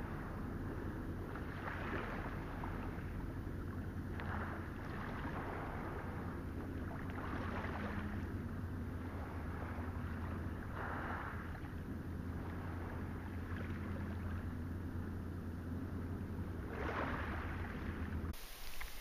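Small Lake Superior waves lapping in shallow water over stones, soft washes coming every two to three seconds, over a steady low rumble.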